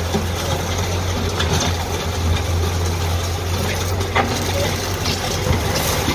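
Diesel engine of a backhoe loader running steadily with a low hum, with a sharp knock about four seconds in.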